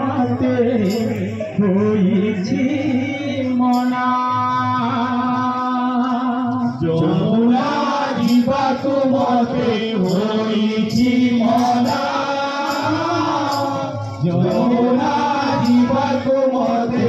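Live kirtan: men singing a devotional song to a barrel drum, with a long held note in the middle and faint regular ticks keeping time.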